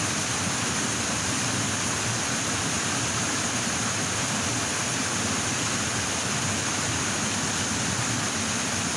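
Steady rushing of fast-flowing stream water.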